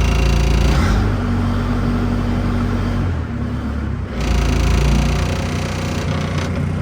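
ASV RC50 tracked skid steer's engine running steadily, being left to run after a fuel-filter change and fuel priming. Its tone and level shift abruptly about a second in and again about four seconds in.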